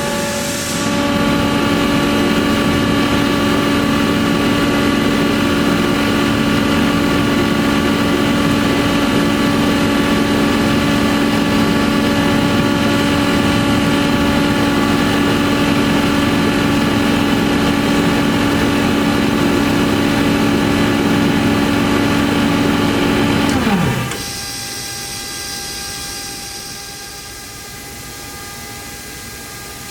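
Ingersoll Rand UP6-10-125 10 HP rotary screw air compressor running with a steady hum of several fixed tones. About 24 seconds in its main running note falls away and drops in pitch, a hiss of released air follows for a few seconds, and a quieter steady hum carries on.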